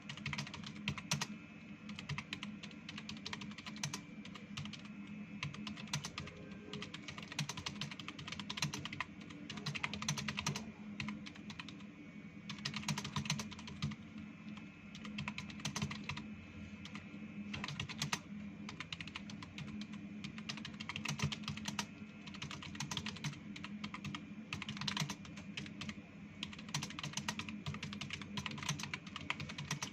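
Continuous fast typing on a computer keyboard: a dense, unbroken stream of keystroke clicks, several a second.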